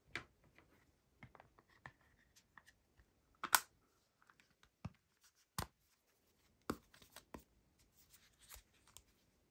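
An iPhone 13 Pro being pressed into a clear plastic Ghostek Covert case by hand: a string of separate clicks and taps from the phone and case edges, with short scrapes. The loudest click comes about three and a half seconds in.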